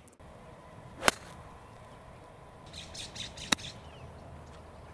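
A golf club striking the ball with a sharp click about a second in, and another sharp click about two and a half seconds later. Birds chirp briefly in between.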